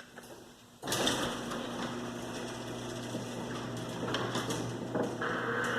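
Garage door starting to move about a second in and running with a steady mechanical hum, rattle and scattered clicks. Its hinges are freshly lubricated, but it is still noisy.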